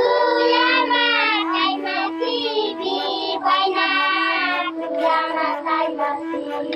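A group of children singing a song together, several voices at once.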